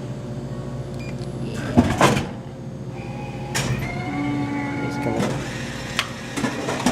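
Hot-drink vending machine working and dispensing, with two loud clunks about two seconds in and then a run of lighter clicks and knocks.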